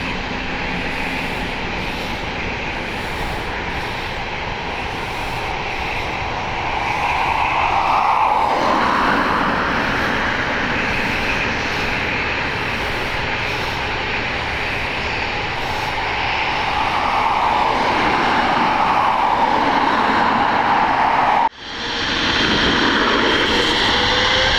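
Jet engines of a Boeing 777-300ER (GE90-115B turbofans) running with a steady rushing noise that grows louder about seven seconds in. The sound drops out suddenly and briefly about 21 seconds in, then comes back with rising whining tones near the end.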